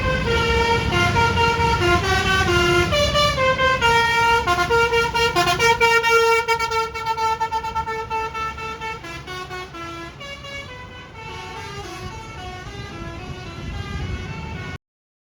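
Bus 'telolet' Basuri multi-tone air horn playing a quick tune of stepping notes over a low engine rumble, loud for the first six seconds or so and then fainter. It cuts off suddenly near the end.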